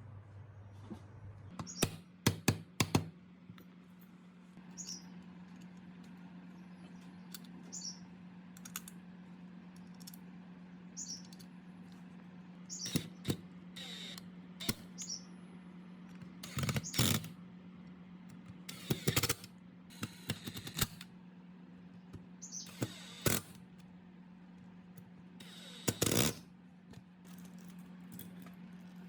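Scattered clicks, taps and short clatters of small metal parts and hand tools being handled on a workbench, over a steady low hum, with a few short high chirps between them.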